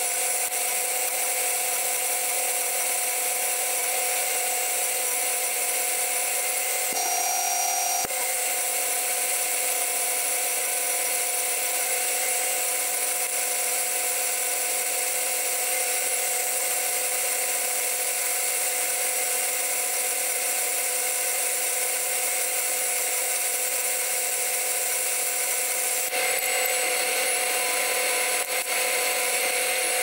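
John Deere 9500 combine running steadily while harvesting soybeans: an even machine whine with several held tones over a hiss. A brief change in the tone about seven seconds in ends with a click about a second later.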